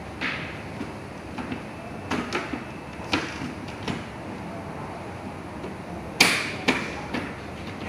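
Scattered small clicks and taps from parts being handled during a motherboard replacement, with a sharper snap about six seconds in and another just after.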